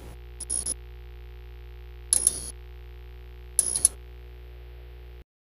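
Logo-intro sound design: a steady synthesized drone of held tones with three short hissing bursts, about half a second, two seconds and three and a half seconds in, cutting off suddenly a little after five seconds in.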